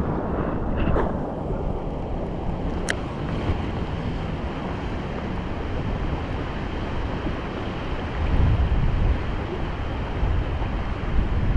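Strong wind buffeting the microphone: a steady rushing with low rumbling gusts, swelling for a couple of seconds past the middle. A single short click about three seconds in.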